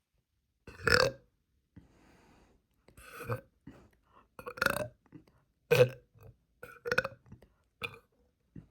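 A girl burping, six burps in a row about a second apart, most of them loud. Gas brought up after drinking sparkling water and eating too many pancakes.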